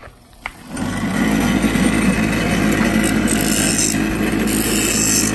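Bench grinder switching on about a second in and running steadily with a low motor hum, with a harsh grinding hiss twice as the edge of a hydrofoil tail wing is pressed against the wheel to taper it.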